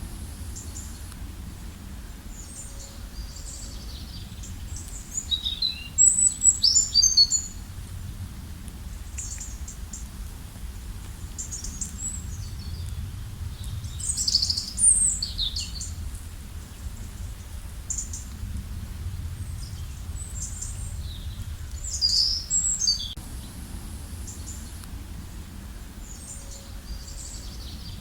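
Songbirds chirping and trilling in short, high bursts, with livelier clusters of calls about a quarter, half and four-fifths of the way through, over a steady low rumble.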